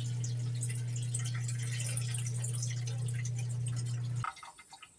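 Dishwasher wash pump motor running with a steady hum while water splashes inside. It cuts off abruptly about four seconds in, leaving faint dripping.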